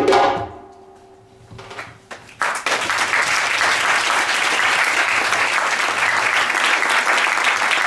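Audience applauding, starting about two and a half seconds in and continuing steadily; before it, a held pitched note fades out.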